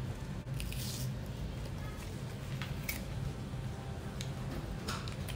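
Plastic capsule bottle being opened by hand: a few scattered clicks, crinkles and rustles of cap and seal, over a low steady hum.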